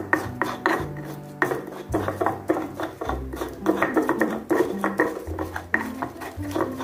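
Pestle grinding and crushing garlic cloves with salt in a black stone mortar (cobek): a rapid run of gritty scrapes and knocks, several strokes a second, as the garlic is worked to a paste.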